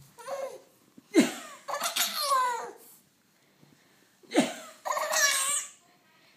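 A seven-month-old baby girl laughing as she is bounced up in the air, in two bouts of squealing laughter with a short quiet gap between them.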